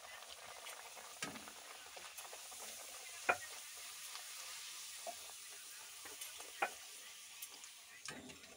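A small puri deep-frying in hot oil in a kadai, sizzling steadily as it puffs up. A few sharp clicks come from the perforated steel frying spoon touching the pan.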